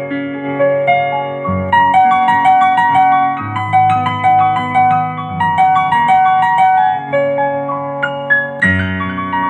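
Yamaha digital keyboard playing its CFX concert grand piano voice: a flowing melody of short repeated notes over held bass notes that change about every two seconds.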